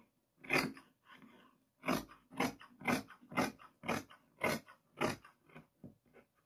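Fabric scissors cutting through a strip of black fabric on a cutting table: one snip about half a second in, then a run of snips about two a second.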